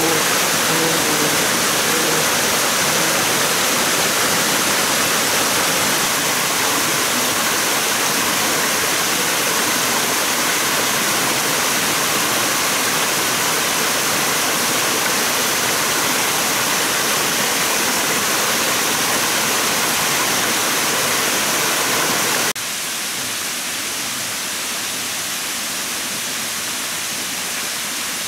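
Rushing water of a small waterfall cascading over rocks in a forest stream, a steady, even rush; about three-quarters of the way through it suddenly drops to a quieter, thinner rush.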